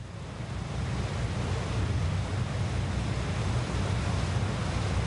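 Churning sea water rushing in a ship's wake over the low, steady rumble of the ship, fading in over the first second and then staying even.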